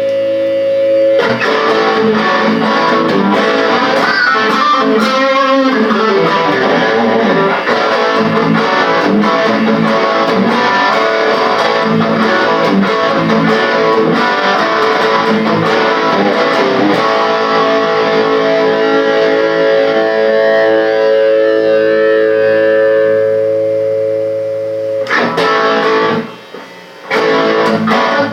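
Electric guitar playing a dense, sustained passage, with a long held chord in the second half and a brief break near the end.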